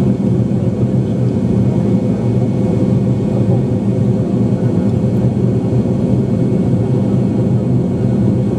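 Steady cabin noise of an airliner in flight, heard from a window seat: an even low roar of engines and airflow with a faint steady hum over it.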